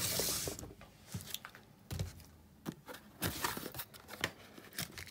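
A cardboard battery box being slid open and handled: a rustling scrape at the start, then scattered light knocks and paper rustles.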